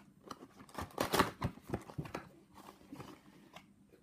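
Cardboard trading-card box being handled and its flip-top lid opened: a string of short taps and scrapes of cardboard, loudest about a second in.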